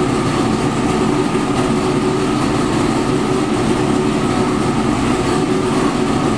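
Steady machinery noise in an engine dyno room: an even, unchanging running sound with a constant hum and no revving.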